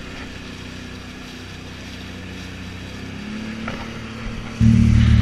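Sea-Doo jet ski engine idling steadily, then throttled up sharply near the end and running much louder.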